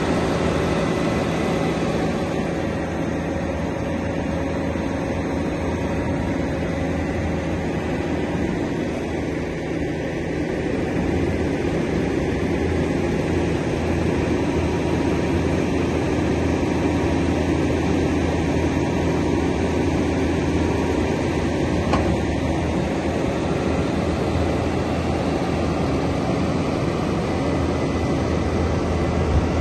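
Caterpillar PM-102K cold planer's diesel engine running steadily, growing a little louder partway through.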